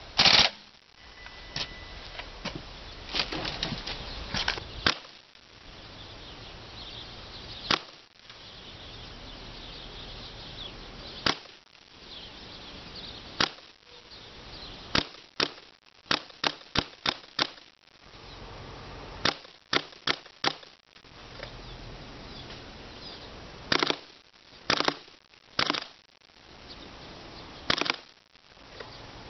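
WE G36K gas-blowback airsoft rifle firing about twenty shots, each a sharp crack, some single and some in quick runs of several shots.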